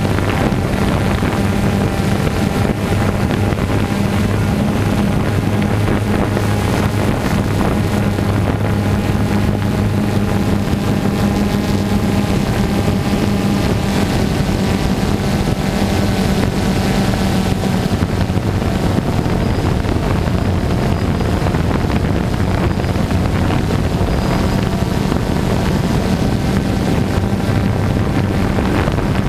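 Multirotor drone's motors and propellers buzzing steadily in flight, with wind noise on the microphone.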